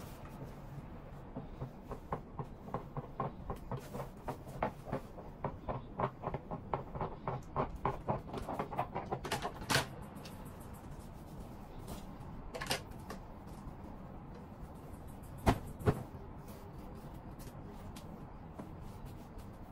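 A run of light clicks and taps, two to three a second, from steaming a shirt on a standing garment steamer and handling it on its hanger. After a lull come two sharp knocks in quick succession, over a faint steady low hum.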